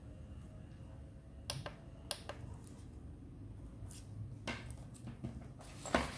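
Handling noise from a plastic smart power strip being turned over in the hands: a few scattered light clicks and taps on its casing, with a louder knock near the end as its coiled cable is grabbed.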